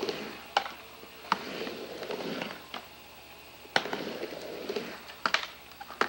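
Skateboard wheels rolling across a mini ramp, broken by several sharp clacks of the board and trucks hitting the ramp surface and coping, two in quick succession about five seconds in.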